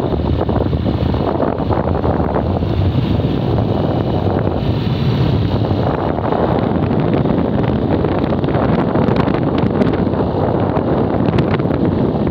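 Steady wind rushing over the microphone while travelling along a road at speed, with the running noise of the vehicle underneath.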